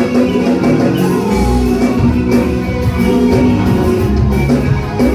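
Band music playing, with a steady beat.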